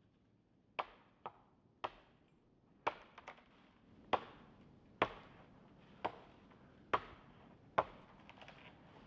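Axe chopping wood: a run of sharp strikes about one a second, some followed closely by a lighter second hit.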